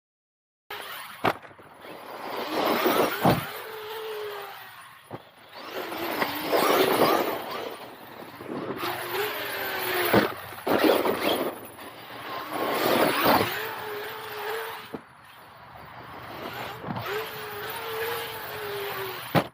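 Traxxas X-Maxx RC monster truck driven in repeated bursts: the brushless electric motor's whine rises and falls with the throttle over the hiss of the tyres on the ground, roughly every three to four seconds. Several sharp knocks stand out, the loudest about a second in, around three seconds in, and around ten and thirteen seconds in.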